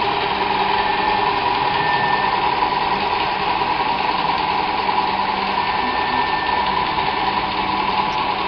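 Live-steam model crane's small steam engine and gearing running steadily as the crane slews slowly round, with a faint higher whine coming in twice.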